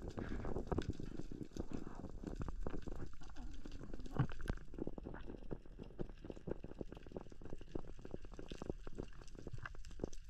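Underwater ambience: a dense, irregular crackle of clicks over a low rumble of moving water.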